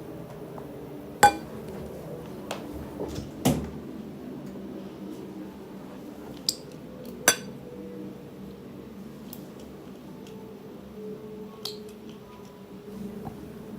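A few sharp, scattered clinks and knocks of kitchen utensils against dishware while slime is being mixed, the loudest just over a second in.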